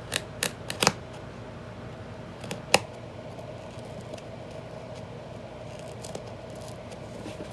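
Sharp snips and clicks of a blade cutting through an old book's binding: four quick ones in the first second, then two more a little before three seconds in, over a faint steady hum.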